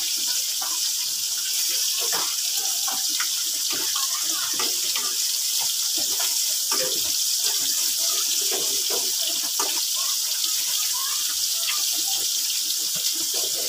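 Tilapia pieces frying in hot oil in a kadai: a steady sizzle with scattered crackles and pops, and a metal spatula now and then turning the fish in the pan.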